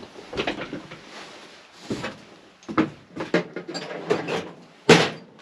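Hand tools and small metal parts being handled and set down on a workbench: a series of irregular clicks and knocks, the loudest a sharp clack about five seconds in.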